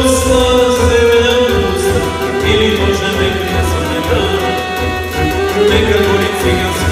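A male singer performing a folk song through a microphone and PA, backed by an electronic keyboard with a steady, pulsing bass beat. The voice holds long, wavering notes.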